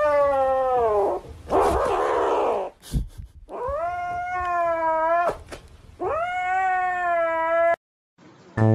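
Grey kitten giving long, drawn-out yowling meows, four in a row; the first falls in pitch, the second is rough and hoarse, and the last two rise and then hold steady.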